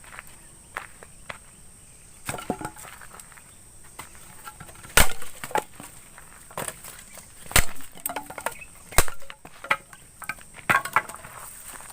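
Irregular sharp woody snaps and knocks, a dozen or so, the loudest about five, seven and a half and nine seconds in, over a steady high insect drone.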